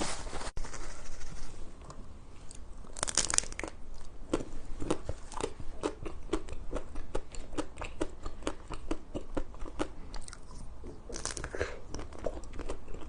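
Close-miked eating of frozen ice cream: two louder crunching bites, about three seconds and about eleven seconds in, with many small crackling crunches of chewing in between.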